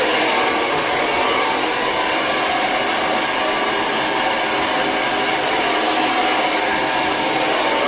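Lange Soleil hair dryer running steadily on its cool setting, a constant rush of air with a high-pitched whine.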